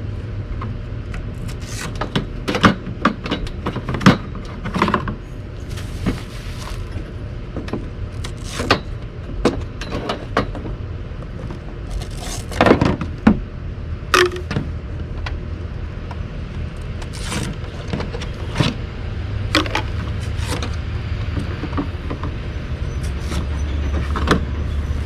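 PVC drain pipe pieces being handled and taken off a plastic table, with irregular knocks, clicks and clatter, over a steady low hum.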